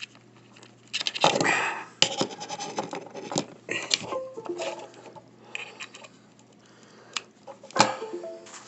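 Cable connectors and a small plastic docking station being handled and plugged in: scrapes, rustles and sharp clicks, with a loud click near the end. A few short stepped tones sound about four seconds in and again just before the end.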